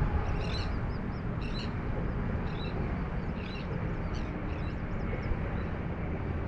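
A steady low rumble, with birds calling in short high calls roughly once a second.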